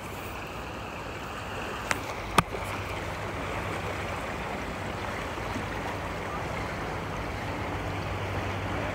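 Water flowing and rippling over rocks at the edge of a creek, a steady rushing, with two sharp clicks about two seconds in.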